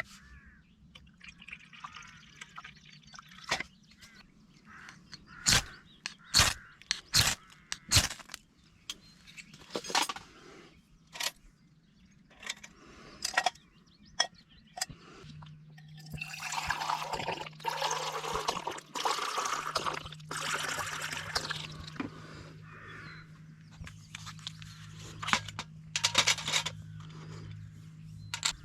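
Scattered knocks and clinks of things being handled, then several seconds of liquid pouring or splashing about halfway through.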